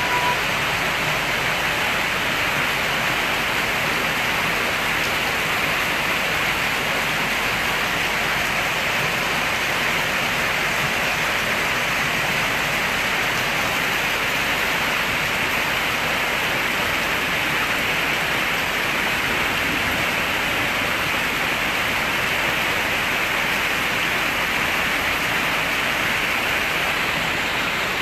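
Steady rushing noise of heavy rain and muddy floodwater running over a yard and road, unbroken throughout.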